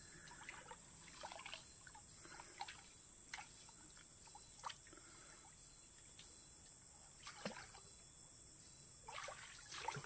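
Faint trickling and small, scattered splashes and drips of stream water, over a steady high-pitched drone of insects.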